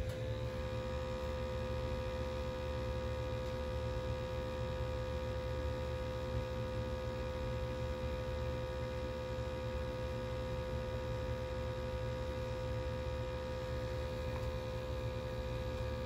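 Steady electric hum of a Testo 320 combustion analyzer's sampling pump drawing flue gas, with a clear steady tone over a low rumble.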